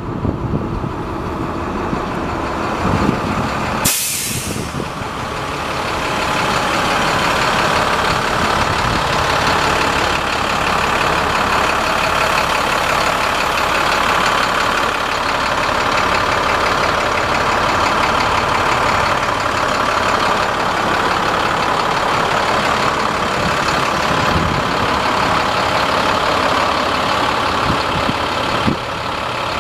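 International 7400 plow truck's diesel engine running steadily. A short, sharp hiss comes about four seconds in.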